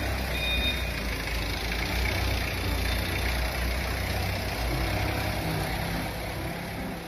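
TCM forklift's engine running with a steady low hum as the truck manoeuvres. Its reversing alarm beeps in the first second, then stops.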